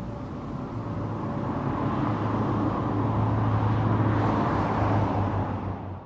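A road vehicle approaching, its engine and tyre noise growing steadily louder, with a steady low engine hum. A faint steady tone from before fades out within the first second and a half.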